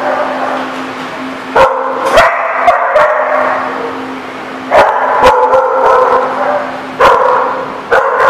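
Dogs barking in sharp bursts, about eight loud barks in clusters, with shorter yips between them, in a hard-walled kennel playroom.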